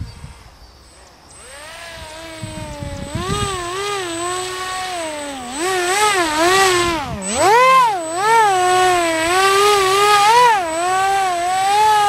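Motor and propeller of a HobbyKing Mad Bird EPP delta-wing RC plane whining while it hangs nose-up in a hover, the pitch swinging up and down all the time with the throttle. It comes in faint about a second in and grows loud from about six seconds, with one deep dip and climb in pitch near the middle.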